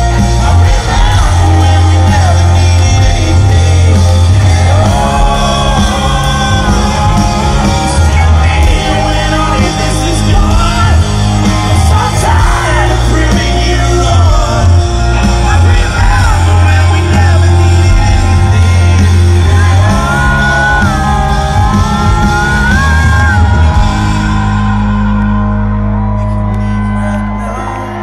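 Live rock band playing loud through an arena PA, with a singer's vocal lines over the band. About four seconds before the end the band drops back to a held chord that fades out as the song ends.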